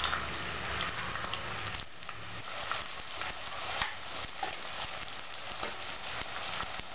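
Sliced red onions sizzling in hot oil in a stainless steel pressure cooker while being stirred with a spoon: a steady hiss with scattered small crackles.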